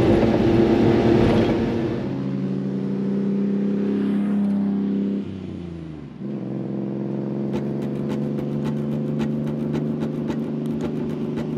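Small 660cc three-cylinder engines of kei mini trucks on the road: at first the engine running at highway speed, heard inside the cab, then a steady engine note from outside as the trucks drive past. The note falls and dips about five to six seconds in. A run of light ticks comes near the end.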